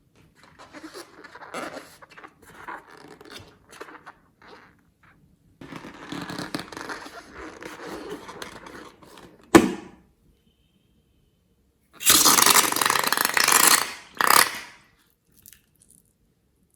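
Slime being worked by hand: two stretches of scraping and squishing, then one sharp snap. Near the end comes a loud rushing noise of about two seconds, followed by a shorter burst.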